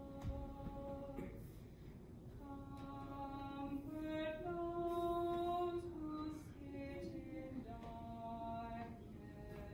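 A solo voice, likely a woman's, singing a slow offertory hymn unaccompanied, with long held notes rising and falling, in a reverberant church.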